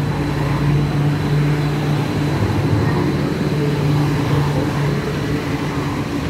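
Rubber-tyred medium-capacity metro train of the Wenhu line running beside the platform, a steady hum from its electric drive and tyres over a rushing noise.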